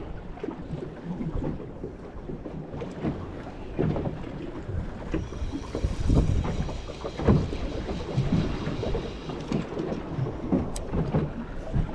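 Choppy water slapping irregularly against the hull of a small drifting boat, with wind buffeting the microphone.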